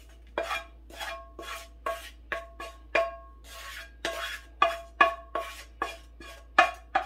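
A wooden spatula knocking and scraping against a nonstick frying pan as sautéed vegetables are scraped out into a plastic bowl. There are about three sharp knocks a second, and each one sets the pan ringing briefly.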